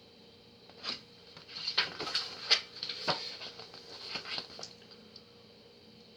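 Paper rustling and crinkling as printed photo inserts are handled, a run of irregular scratchy crackles lasting about four seconds from about a second in.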